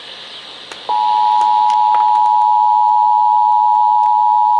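Emergency Alert System attention tone from a radio broadcast: a loud, unbroken steady tone just under 1 kHz that starts about a second in, after a moment of faint radio hiss and clicks.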